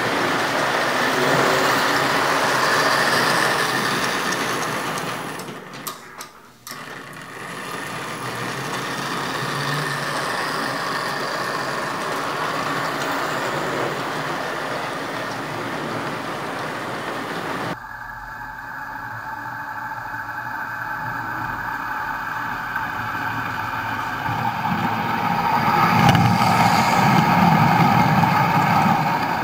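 American Flyer S-gauge electric model train running on the layout's track: a steady rolling rumble and clatter of the cars' wheels on the rails. It dips briefly about six seconds in, changes character suddenly partway through, and gets louder near the end as cars pass close by.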